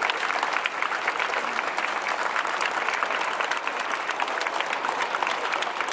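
A crowd of football supporters clapping: dense, continuous applause from many hands.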